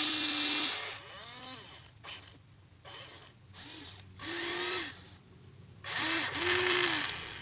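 Huina 1593 RC excavator's small electric motors whining in short stop-start bursts, each rising and then falling in pitch. A longer steady run cuts off just under a second in.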